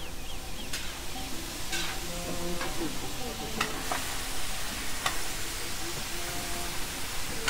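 Diced vegetables sizzling in a large steaming cauldron as a long wooden paddle stirs them, with about five sharp scrapes of the paddle against the pot. The sizzling grows louder near the end.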